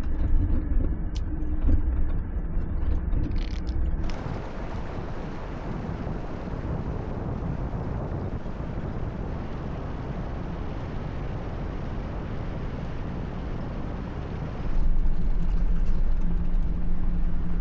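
Jeep Gladiator driving on a dirt road: steady engine hum and road noise. About four seconds in, the low hum drops away and a quieter, even hiss takes over for about ten seconds. Then the louder engine hum returns.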